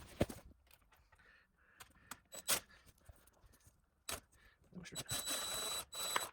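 Sharp metallic clicks and knocks of tools on the bike's fittings, then a small power driver with a screw bit runs for about a second and a half near the end, a steady whirr with a thin high whine.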